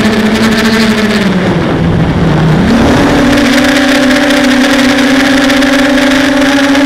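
Hexacopter's electric motors and propellers whining steadily. The pitch sags about two seconds in, then climbs back and holds as the throttle is worked against gusty wind.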